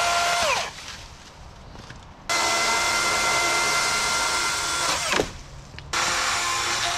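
Electric power-tool motor whining at a steady high pitch in three bursts: one winds down under a second in, another runs from just past two seconds to about five seconds and spins down, and a third starts near six seconds.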